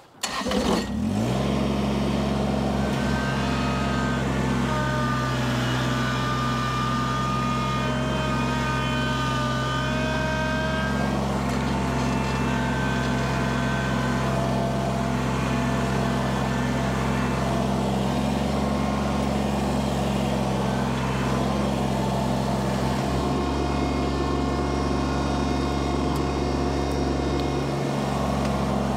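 Kubota BX compact tractor's diesel engine coming up to speed in the first second, then running steadily at high throttle with a whine above it, working under a heavy load.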